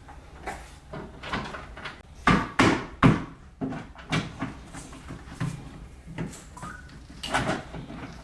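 Irregular knocks and clunks of a widebody fender panel being handled and pressed into place against the car's body while it is screwed on, the loudest knocks a couple of seconds in.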